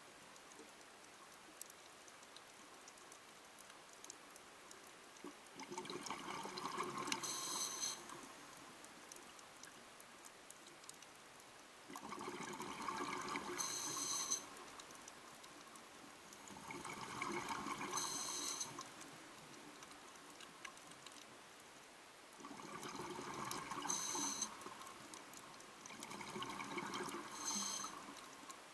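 A scuba diver breathing through a regulator underwater: five bursts of exhaled bubbles, each two to three seconds long and about five seconds apart, over a faint steady hiss.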